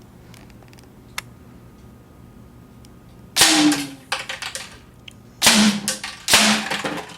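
Walther SG9000 CO2 BB air gun firing three shots: one about halfway through, then two about a second apart near the end. Each is a sharp pop followed by a short low ring and rattling clicks. A faint click comes about a second in.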